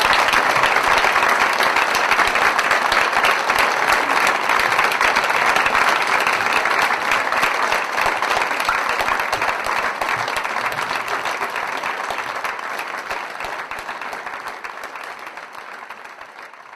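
Audience applauding: dense, steady clapping that gradually fades out over the last several seconds.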